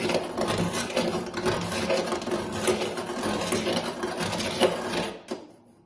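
Hand deburring tool (Shaviv) scraping around the sharp cut edge of a freshly drilled hole in a steel door frame in quick repeated strokes, shaving off the metal burr; the scraping stops about five seconds in.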